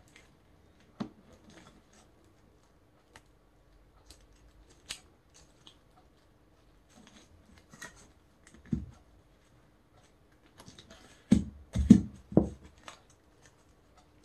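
Colored paper being handled, folded and pressed flat by hand: soft scattered rustles and small taps, then a few dull thumps about eleven seconds in.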